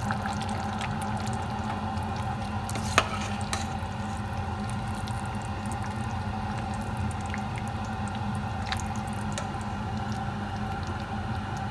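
Pot of sotanghon noodle soup bubbling: small scattered pops over a steady low hum, with one sharp click about three seconds in.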